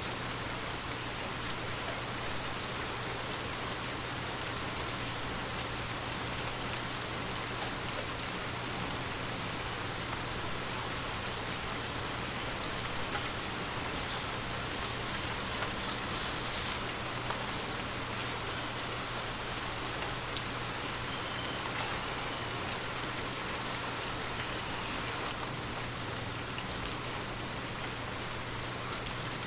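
Steady rain falling on a surface, an even hiss with scattered drop ticks and a low steady hum underneath.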